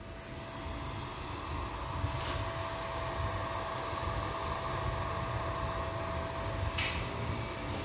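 Steady electrical-machine hum with a constant mid-pitched whine from running bench equipment, and two brief rustles about two and seven seconds in.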